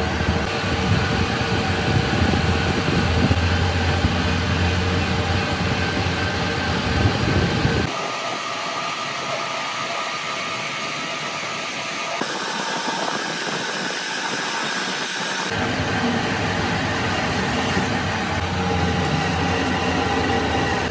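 Metal lathe running with a steady motor hum and whine while a drill bit and then a cutting tool work the end of a steel camshaft. The low hum drops away abruptly for several seconds in the middle and then returns.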